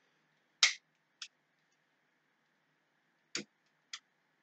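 Four short, sharp clicks in two pairs, each pair about half a second apart. The first, about half a second in, is the loudest.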